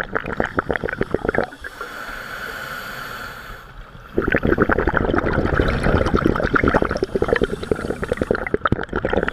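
Scuba regulator breathing underwater: a burst of exhaled bubbles rushing and crackling, then a steady hiss as a breath is drawn through the regulator about a second and a half in, then a long stream of exhaled bubbles again from about four seconds in.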